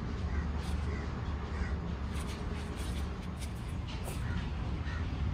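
Birds calling a few times, short repeated calls over a steady low rumble.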